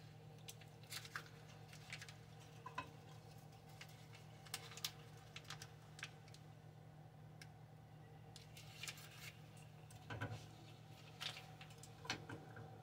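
Faint crinkling of a paper butter wrapper and light clicks and taps of a wooden spatula against a nonstick frying pan, over a steady low hum.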